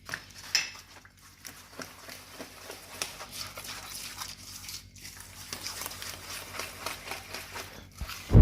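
Hand-mixing eggs, sugar and oil in a bowl: a continuous run of irregular light clicks and scrapes as the mixture is worked to blend the oil with the sugar. A single loud thud comes right at the end.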